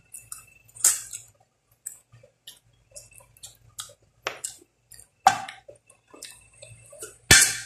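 Close-up mouth sounds of eating with the fingers: irregular wet lip smacks, finger sucking and chewing on very soft stewed goat's feet, with a few louder smacks.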